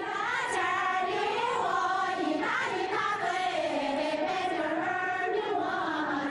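A large group of women singing one melody together, full-voiced and continuous.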